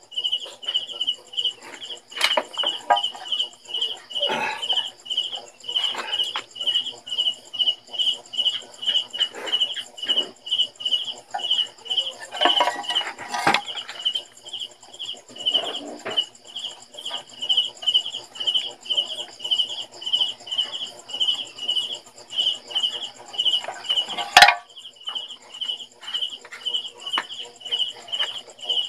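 A cricket chirping in a steady run of high pulses, about three a second. Over it come scattered knocks and scrapes of the scooter's metal transmission cover being handled, the sharpest knock about 24 seconds in.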